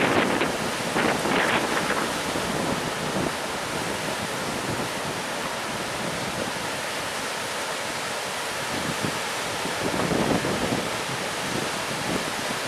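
Ocean surf from a hurricane swell breaking and washing in steadily, with wind buffeting the microphone. The rush swells louder in the first couple of seconds and again about ten seconds in.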